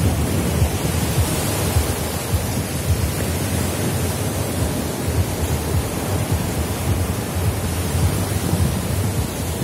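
Sea surf breaking and washing up a sandy beach, a steady rushing noise, with wind rumbling on the microphone.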